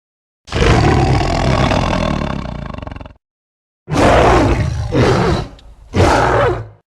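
Creature roar sound effects for the Ozark howler, a legendary cryptid: one long roar of about three seconds that fades and pulses near its end, then after a short silence two shorter roars.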